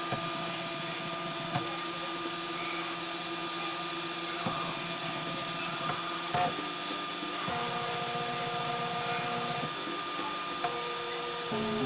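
Stepper motors of a homemade 3D printer whining as the print head moves during a print, in steady tones that jump to a new pitch with each change of move. A few short clicks come between moves, over a constant high-pitched tone.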